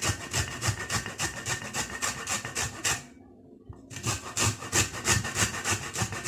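Lemon rind being grated on a hand grater for its yellow zest: quick, even back-and-forth scraping strokes, about four a second, with a short pause about three seconds in.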